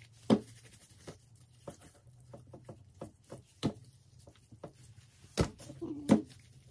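Raw chicken thighs being handled and set down on a wooden cutting board: scattered soft slaps and knocks, a few of them sharper and louder.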